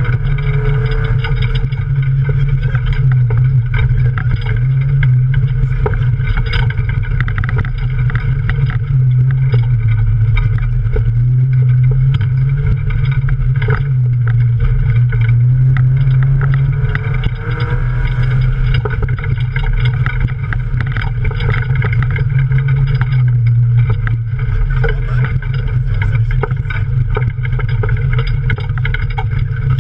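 Toyota Yaris off-road race car heard from inside the cabin while driving hard: the engine runs loud and steady, its revs swinging up and down now and then, over frequent knocks and rattles.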